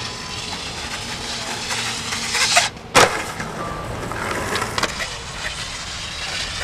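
Skateboard grinding down a concrete stair rail, the scrape growing louder, then a brief gap and a sharp landing slap about three seconds in, followed by urethane wheels rolling on concrete.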